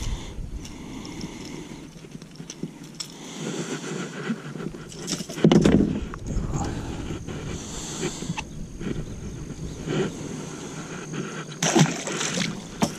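Handling noise on a bass boat: rustling with scattered clicks and knocks as gear is moved about. There is a louder thump about halfway through and another near the end.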